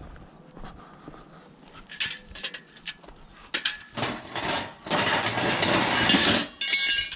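Scrap metal pieces being handled and thrown into a van: a few sharp metallic clanks, then a loud scraping, rattling crash lasting about two seconds, and a quick run of clicks near the end.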